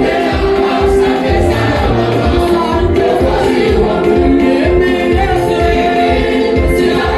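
Choir singing a gospel praise song in harmony over a steady drum beat.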